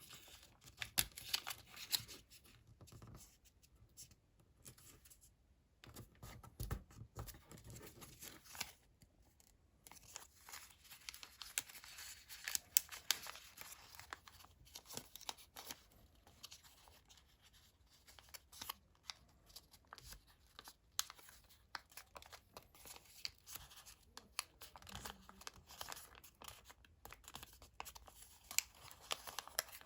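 Sheets of colored origami paper being handled, folded and creased by hand, with many short, irregular crinkles and crisp creasing clicks.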